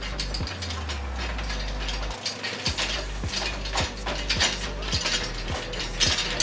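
Ratchet-like clicking and small metal clinks as a nut is tightened onto a bolt through stacked aluminium body pieces.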